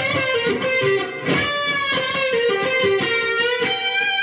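Electric guitar, a Fender Stratocaster, playing a bluesy G minor lead line: a run of single picked notes with slides and bends into pitch, ending on a held note with vibrato.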